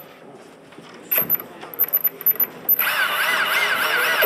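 Small electric combat-robot motors whining, first in short stop-start bursts, then in a sustained, loud whine from nearly three seconds in whose pitch swings rapidly up and down, about five times a second.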